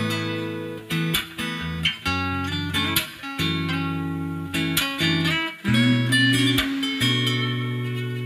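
Instrumental break of a ballad's backing music: acoustic guitar strumming chords, each held for a moment with short breaks between them.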